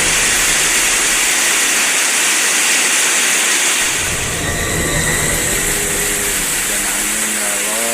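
Heavy rain and wind, a steady loud hiss, with faint wavering tones rising through it near the end.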